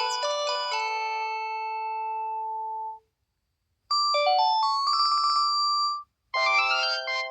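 Panasonic KX-TGA651E cordless phone handset playing a series of ringtone melodies. One tune ends on a held note, and after a short pause a brief second tune with a fast trill plays. After another short gap, a third tune begins near the end.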